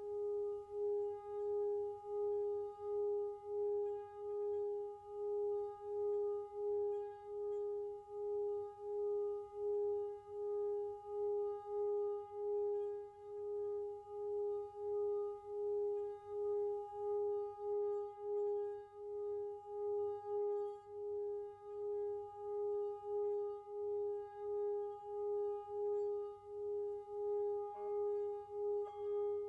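Tibetan singing bowl sounding one sustained low tone that pulses steadily, about one and a half swells a second. Near the end a second, higher ringing tone joins it.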